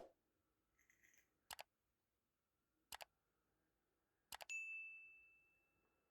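Quiet handling sounds: three crisp double clicks about a second and a half apart. The last is followed by a clear ringing ding that fades over about a second and a half.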